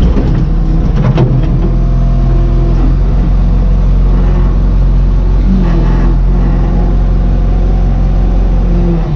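Old dump truck's engine running steadily while under way, with a brief clatter about a second in and a change in the engine note about five and a half seconds in.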